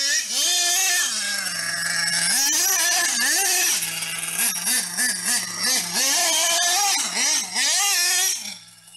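Alpha 3.5cc nitro engine of a 1/8-scale Hobbytech Spirit EVO buggy revving up and dropping back to idle again and again. Around the middle it gives a run of quick throttle blips, about three a second.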